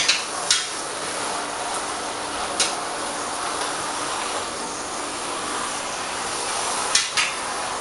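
A steady, even hiss with a few light clicks: one just after the start, one about half a second later, one at about two and a half seconds, and a small cluster about seven seconds in.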